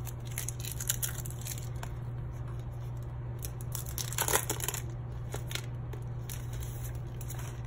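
Clear plastic packaging of a pencil board being handled and opened: scattered crinkles, rustles and small clicks, with a denser burst of crackling about four seconds in, over a steady low hum.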